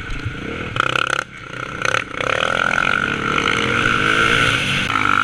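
Dirt bike engine under way on a motocross track, revs rising and falling as the rider works the throttle, with a brief drop a little past a second in before it pulls again.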